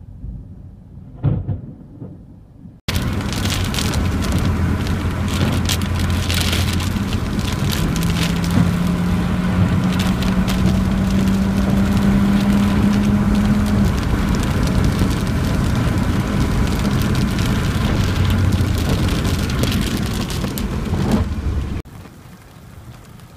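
Heavy storm rain pelting with many sharp hits, starting suddenly about three seconds in and stopping suddenly near the end, with a steady low hum underneath. A single thump sounds about a second in.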